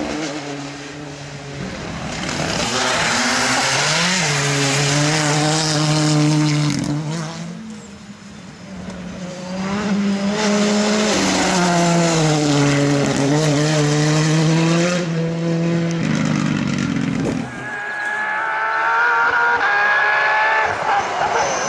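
Rally cars passing at full throttle, three passes one after another, each engine revving up and dropping back with the gear changes. The last, from about eighteen seconds in, is a Porsche 997 GT3's flat-six, higher-pitched and rising.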